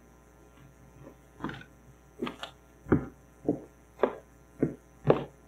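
Footsteps of a person walking across a stage floor: about eight evenly spaced steps at roughly two a second, starting about a second and a half in.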